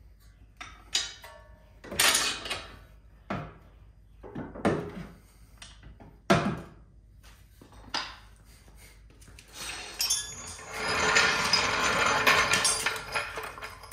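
Metal clanks and knocks from handling a coilover strut and tools while fitting it into the front suspension. About six separate knocks come in the first eight seconds, then a few seconds of continuous clattering noise starting about ten seconds in.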